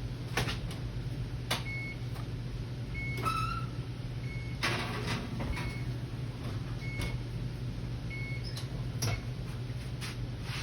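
A brownie pan being put into a kitchen oven: scattered clicks and knocks of the oven door and rack, with a faint short beep repeating about every second and a half, over a steady low hum.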